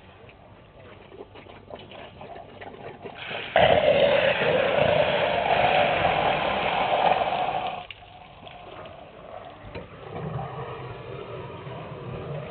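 African elephant bull squirting water from its trunk into its mouth while drinking: a loud gushing rush of water and air that starts suddenly about three and a half seconds in, lasts about four seconds, then cuts off.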